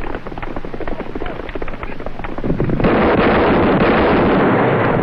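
Horses galloping, their hooves beating in a fast, continuous run. About halfway through the sound turns suddenly louder, into a dense, steady rushing noise.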